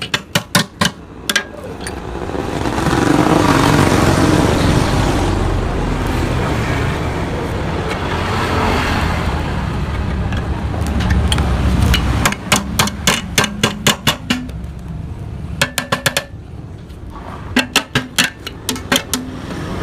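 Quick runs of hammer blows on the steel muffler of a Yamaha RX-King exhaust being gutted, each run about five or six strikes a second. One run comes at the start and several come in the second half. Between them, a long stretch of steady rushing noise swells and fades.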